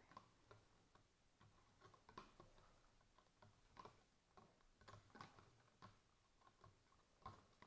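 Faint, irregular clinks of a metal spoon against a cup as slime mix is stirred to dissolve a colour tablet.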